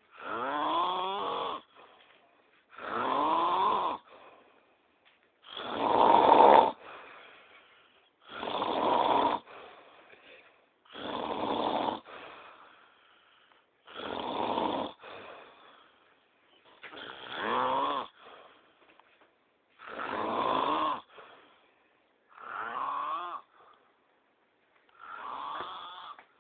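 A person snoring hard: about ten loud, rasping snores, one roughly every three seconds, each lasting a little over a second, with a fainter breath between them.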